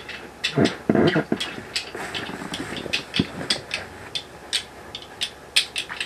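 A run of irregular sharp clicks and ticks, a few a second, with two heavier low thumps about a second in.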